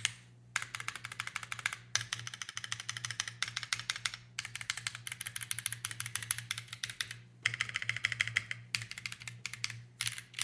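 Typing on a JRIS75 custom mechanical keyboard with Corsa tactile switches, an aluminium plate and PBT keycaps, no foam inside the case. Rapid runs of keystroke clacks come in bursts, with brief pauses between them.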